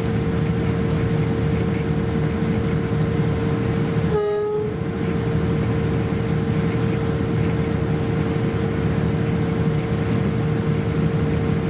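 Diesel-hauled train running along the track, a steady drone of engine and running gear with a constant hum; about four seconds in the sound briefly drops out.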